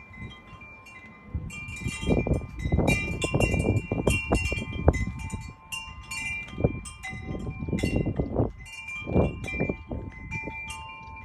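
Wind chimes ringing steadily in gusty wind, with surges of wind rumbling on the microphone.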